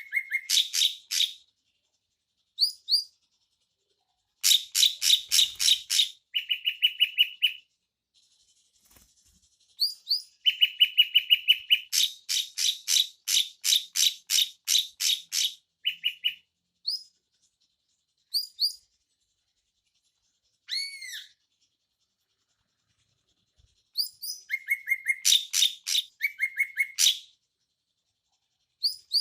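Drongo song: bursts of rapid, evenly repeated sharp chattering notes, each series lasting one to four seconds, with short silences between them. About 21 seconds in there is a single ringing, arched whistle.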